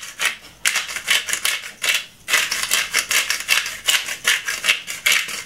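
Hand pepper grinder being twisted, crunching peppercorns in quick repeated grinding strokes, about three or four a second, with short pauses about half a second in and again about two seconds in.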